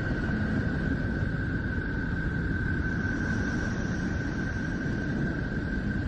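NASA space recording turned into sound: a steady low, noisy drone with a steady high tone held above it, and a fainter, higher tone joining about halfway through.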